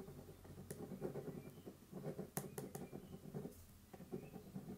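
Pen writing on paper close to the microphone, in three spells of strokes with short pauses between, with a few light ticks.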